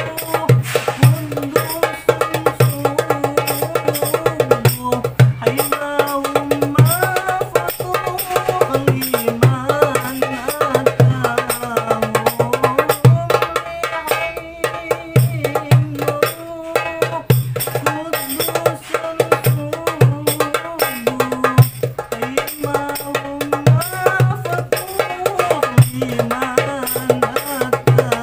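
Cast-aluminium 8¾-inch darbuka played by hand in a fast, dense rhythm of deep strokes and sharp finger taps. It plays along with a sholawat tune whose melody rises and falls.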